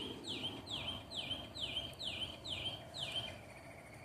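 A bird singing: a run of about eight identical high notes, each sliding down and levelling off, repeated a little over twice a second, stopping about three seconds in.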